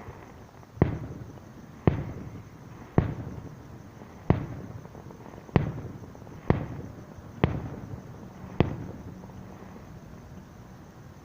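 Aerial firework shells bursting at a distance: eight booms about a second apart, each trailing off in an echoing rumble, then a lull with no bursts near the end.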